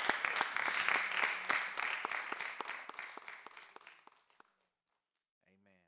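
Congregation applauding, dense clapping that fades away over about four seconds into silence.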